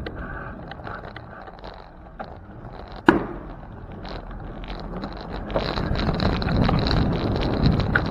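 Wind buffeting the microphone of a camera riding on a moving bicycle, over road and tyre noise. There is a single sharp knock about three seconds in, and the wind grows louder over the last few seconds.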